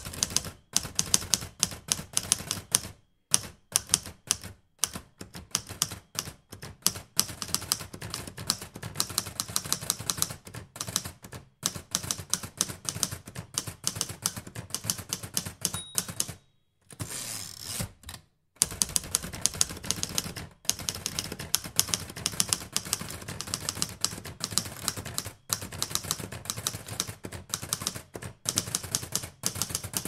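Typewriter keys struck in rapid runs of sharp clacks with short pauses between runs. About halfway through, the end-of-line bell dings once and a short noisy slide follows as the carriage is returned, then typing resumes.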